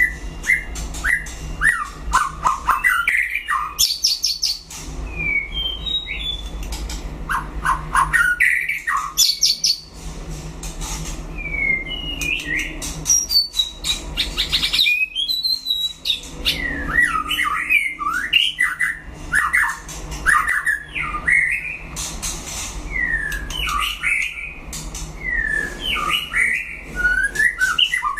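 White-rumped shama singing: a rapid, varied stream of short whistled notes that slide up and down, mixed with runs of sharp clicking notes.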